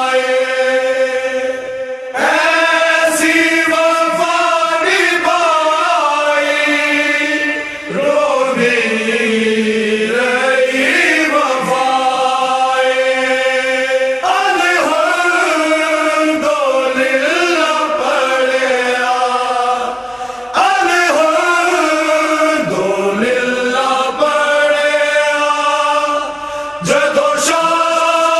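A noha, a Shia mourning chant, sung by a male voice in long, drawn-out melodic phrases, with a short pause between phrases about every six seconds.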